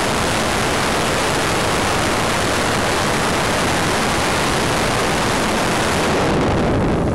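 Rushing airflow over the microphone of a camera mounted on an RC Wot 4 model plane in flight: a loud, steady hiss. About six seconds in, its high end drops away and it turns duller.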